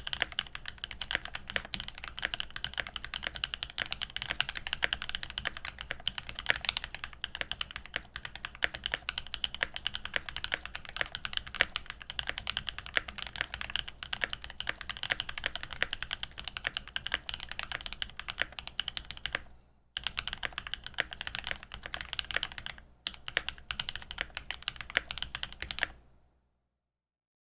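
Fast, continuous typing on a Tofu65 custom mechanical keyboard. It has hand-lubed Zenclack Oooolong linear switches, a foamed brass plate, a coil spring mount and GMK keycaps, and the keystrokes sound crisp and poppy. The typing breaks briefly twice in its last third, then stops about a second before the end.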